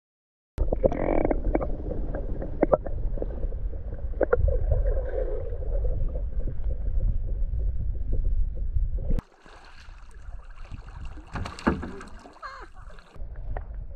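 Water rushing and churning against a camera at and below the surface beside a moving kayak, loud, with scattered knocks. About nine seconds in it cuts to quieter open-water kayaking: water washing along the hull.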